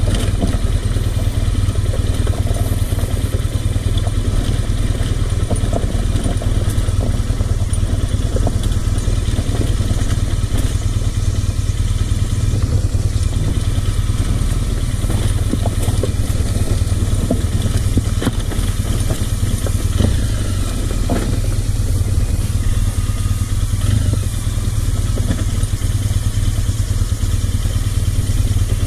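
Adventure motorcycle engine running steadily as the bike rides over a rough, rocky dirt track, with frequent rattles and knocks from the bike over the uneven ground.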